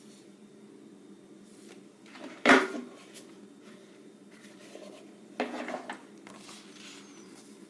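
Toothbrush set accessories being handled while unboxing: a sharp knock about two and a half seconds in, and a shorter clatter of knocks about five and a half seconds in, over a low steady hum.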